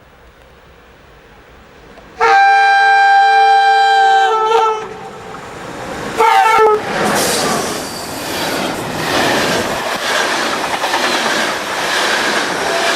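Train horn sounding a long blast of about two and a half seconds, then a short second blast. The loud rush and rattle of the train passing close by follows.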